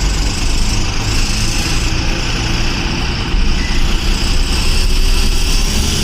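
Eicher bus's diesel engine running steadily, heard from inside the driver's cabin, under an even hiss of road and wind noise.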